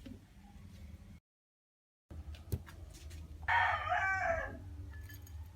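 A single call with a stack of harmonics, about a second long and falling in pitch at its end, coming after a short cut to silence and a click.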